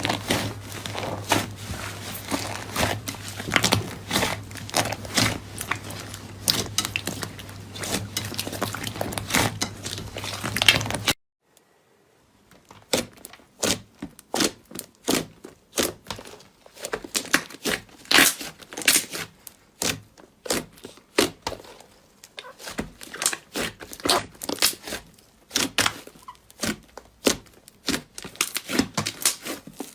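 Rapid, dense clicking and crinkling with a steady low hum underneath. About eleven seconds in it cuts off briefly, then returns as sharper, more widely spaced clicks without the hum.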